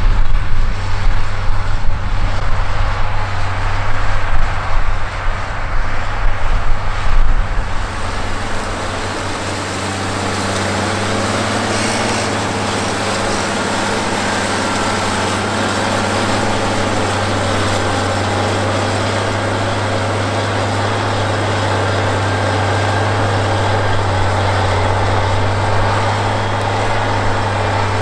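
White 185 tractor's diesel engine running under load while pulling a chisel plow through corn stalks. For the first several seconds there is an uneven low rumble that rises and falls. From about eight seconds in it settles into a steady engine drone.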